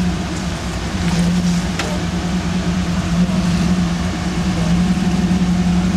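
Jeep engine running steadily at low revs while the Jeep crawls over rocks, with one short knock about two seconds in.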